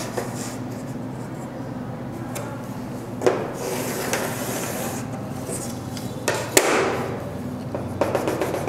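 Chalk scraping along a wooden ruler on a chalkboard as straight lines are drawn, with a few sharp knocks of the ruler and chalk against the board. Near the end, a run of quick chalk taps.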